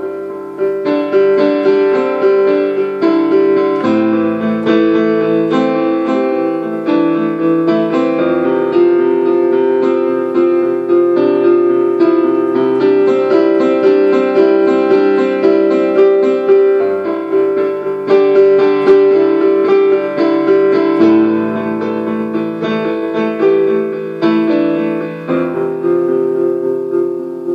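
Solo piano improvisation: a steady stream of quick, repeated notes over held chords, with the bass note changing every few seconds.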